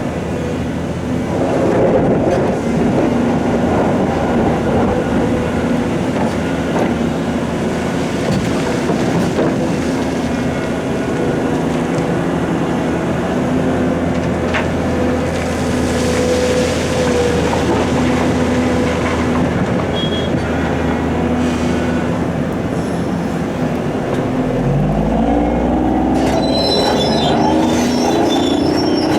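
Heavy diesel machinery working at a stone quarry: the Volvo EC700 excavator loading a Perlini 655 dump truck. Engines run steadily with a high whine over them, and near the end an engine revs up, rising in pitch.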